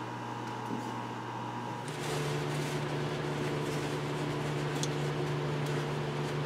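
Steady mechanical background hum, like a fan or ventilation unit running. It changes to a lower, fuller hum about two seconds in, with a few faint handling clicks.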